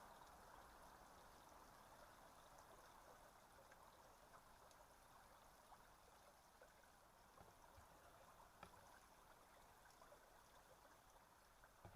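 Near silence: faint, steady trickle of running water from a nearby stream, with a few small clicks.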